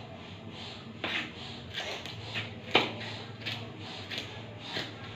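Kitchen knife chopping vegetables on a cutting board: sharp, irregular taps of the blade on the board, about seven of them, the loudest near the middle.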